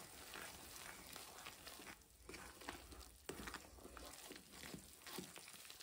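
Faint, irregular scrapes of a metal ladle stirring gram flour and poppy seeds roasting in ghee in a steel kadhai.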